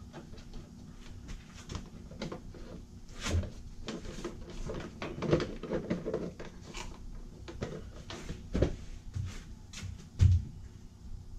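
Scattered clicks, clinks and knocks of hands fitting small metal parts and nuts behind a car's front bumper, with a few louder knocks about three seconds in, past the middle, and the loudest near the end.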